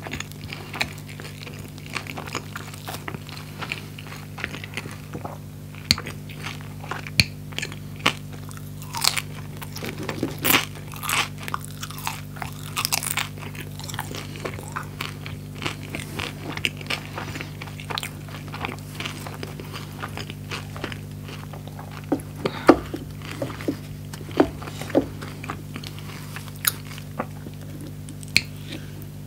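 Close-miked bites and chewing of a crisp toasted skepasti pita sandwich with fried chicken: sharp crackly crunches at irregular intervals, thickest in two spells, over a steady low hum.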